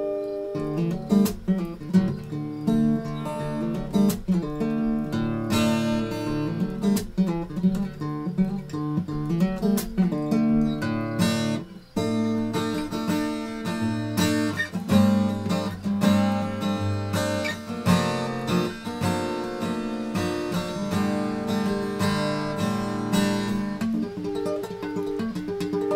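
Steel-string acoustic guitar in DADGAD tuning playing an instrumental tune, a steady flow of picked notes and chords with a brief break about halfway through.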